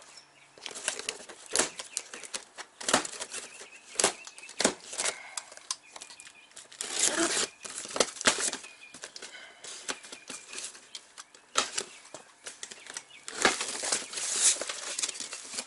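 White plastic strapping bands being cut and pulled off a cardboard shipping box: a run of sharp snaps, scrapes and rustling of strap and cardboard.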